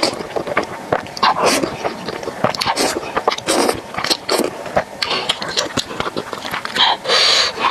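Close-miked eating sounds: noodles slurped in several long pulls, with wet chewing and lip smacks between them, and the longest slurp near the end.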